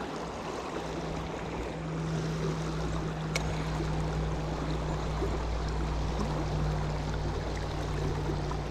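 Steady rush of flowing creek water in a tailwater stream, with a low steady hum underneath and a single faint click about a third of the way in.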